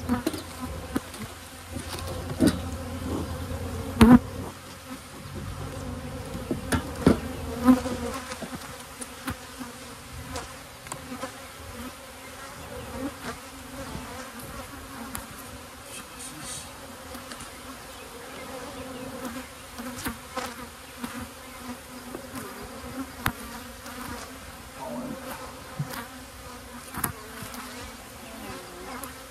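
Honey bees buzzing over an open hive, a steady hum, with a few sharp knocks of a metal hive tool against the wooden frames in the first eight seconds or so.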